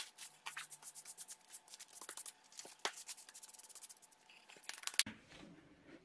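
Thin black plastic bin bag crinkling and rustling as it is handled, a quiet run of small irregular crackles that dies away about five seconds in.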